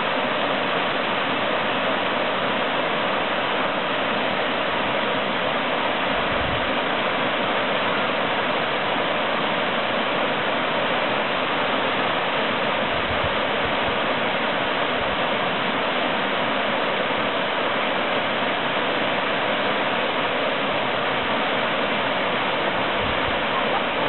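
Waterfall pouring down a rock face into a pool: a steady, unbroken rushing hiss. A few soft low thumps come through it.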